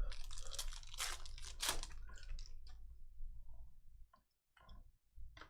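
Crinkling and tearing of a trading-card pack's foil wrapper as it is ripped open, dense for the first two seconds or so, then a few scattered light rustles of cards being handled.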